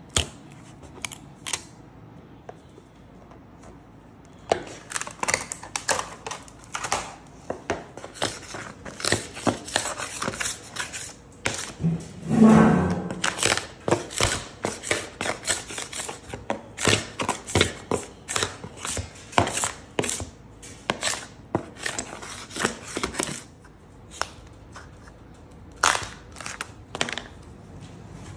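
Repeated scraping strokes of a steel scraper across a plastic-covered worktable, knocking off cured epoxy drips, about one or two sharp strokes a second, with a louder, duller bump about halfway through.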